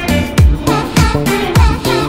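Upbeat background dance music with a steady drum beat, a little over two beats a second.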